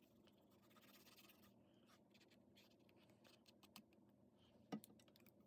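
Near silence, with a few faint ticks of card stock being handled and one small click near the end.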